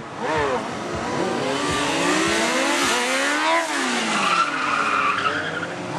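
Sport motorcycle engine revving hard during a stunt run: the pitch climbs for about three and a half seconds, then drops steeply. Tyre squeal sounds against the tarmac near the end.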